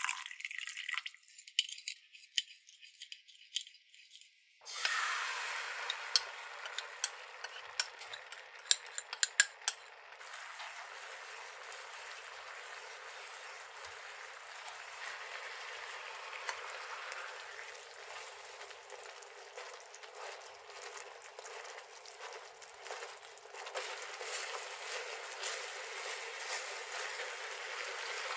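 Water poured into a glass bowl, then a few seconds of light clicks. About five seconds in, a gochujang-ketchup sauce starts sizzling and bubbling in a nonstick frying pan, with many sharp clicking pops for several seconds, then settles to a steady simmer as it is stirred with a wooden spatula and reduced over low heat. The sizzle grows louder near the end as fried mochi is turned in the sauce with tongs.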